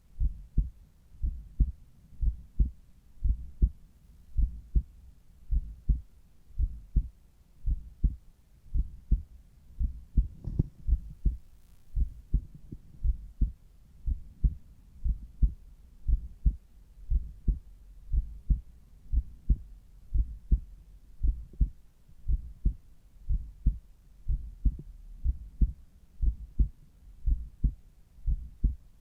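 Heartbeat heard through a Littmann Cardiology IV stethoscope at the cardiac apex: low thumps in a steady, even rhythm, with a brief faint rustle about ten seconds in.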